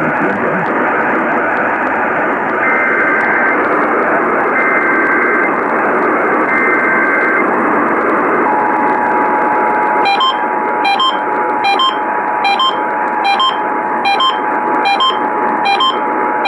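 AM radio reception under heavy static carrying the start of an Emergency Alert System alert. There are three short bursts of the screechy two-tone SAME header data, then, from about halfway, the steady two-tone EAS attention signal. From about two-thirds in, a regular beep comes roughly once a second on top of it.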